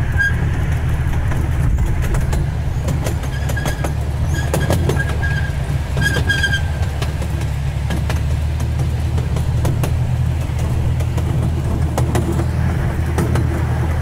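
Miniature park train rolling along its track, heard from an open passenger car: a steady low rumble with scattered clicks and a few faint high squeaks around the middle.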